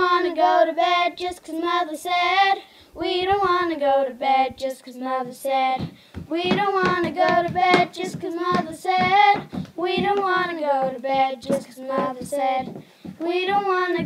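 Children singing a rhyming song with no instruments, in sung phrases of held notes with short breaks between them.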